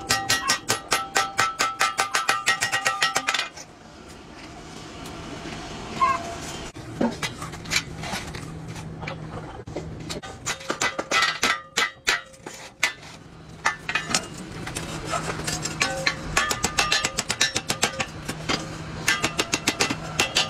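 A hammer striking sheet steel against a steel bench in fast, even blows, each with a short metallic ring, as a steel pan's handle tab is bent and shaped. The hammering stops for several seconds with only scattered knocks, then picks up again near the end.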